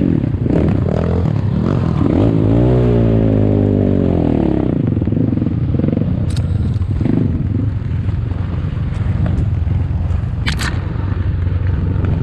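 ATAKI DR 250 enduro motorcycle engine being ridden, revving up and down between about two and five seconds in, then running more steadily, with clattering from the bike over rough ground.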